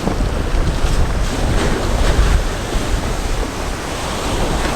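Strong wind buffeting the microphone with a heavy low rumble, over a wash of waves.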